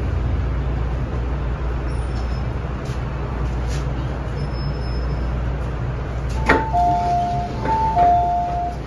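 Metro-Cammell M-Train on the MTR running steadily with a low rumble as it comes to a stop. Near the end a click is followed by the train's two-note door chime, a higher note then a lower one, played twice as the doors open.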